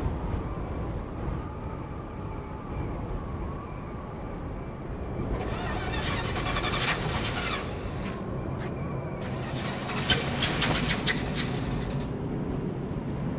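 A steady low rumble like a vehicle running, with two louder rasping, hissing noises, one about five seconds in and one about ten seconds in.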